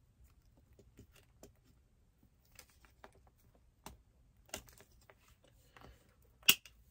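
Faint clicks and light plastic rustling as laminated dividers and cash envelopes are handled and slid into a ring binder, with a sharper click near the end.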